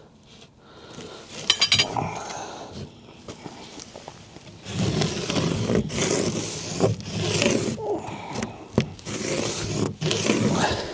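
Irregular scraping and knocking with a few clinks, getting louder and busier about halfway through.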